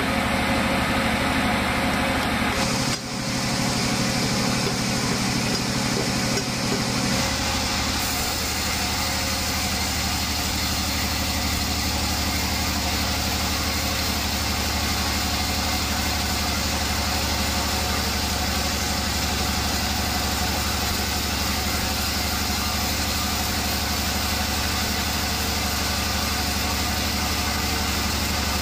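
Large band sawmill running steadily, its blade cutting lengthwise through a knotty, burl-covered wood slab: an even machine drone with a low hum underneath. The sound changes briefly about three seconds in, then holds steady.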